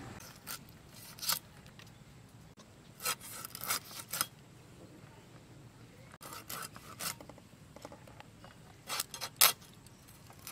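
Hilsa fish being cut into ring pieces on a boti, a curved blade fixed upright on a wooden base: short scraping, rasping strokes as the fish is pressed through the blade, coming in several separate bursts.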